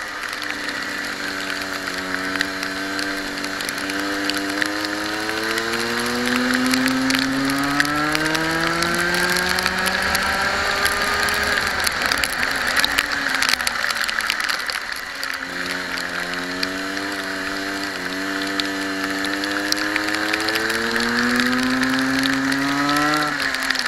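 Kart engine heard from the onboard camera, rising steadily in pitch as the kart accelerates along a straight, falling away about eleven seconds in as the driver lifts off, then rising again from about fifteen seconds and dropping off sharply near the end. A steady hiss of wind and spray off the wet track runs under it.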